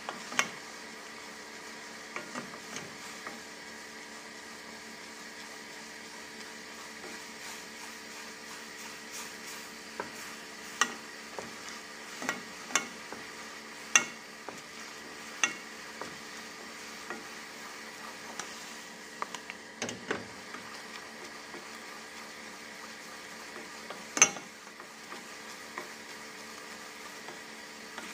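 Caramel sauce sizzling and bubbling in a stainless steel saucepan while a wooden spoon stirs it, with a steady hiss and scattered sharp knocks as the spoon hits the pan's side; the loudest knocks come about halfway through and again near the end.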